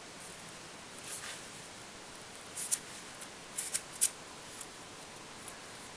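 Small fly-tying scissors snipping a few times: short, sharp snips, one about a second in and a quick cluster a little after the middle.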